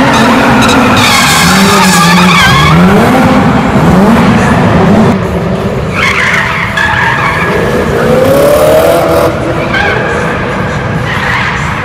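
A drift car's engine revving up and down again and again while its tyres squeal and skid as it slides through a drift, inside an exhibition hall.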